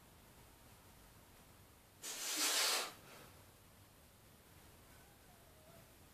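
A weightlifter's single forceful, hissing breath of under a second, about two seconds in, during a set of heavy barbell half squats; otherwise quiet room tone.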